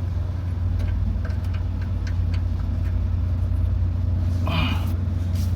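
Tata Ace Gold's small two-cylinder petrol engine, the same engine used in the Nano, idling steadily. A brief noise comes over it about four and a half seconds in.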